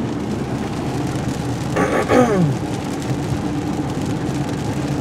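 Inside a car driving through heavy rain: steady road and engine noise with rain on the car body and windshield. A short voice sound comes about two seconds in.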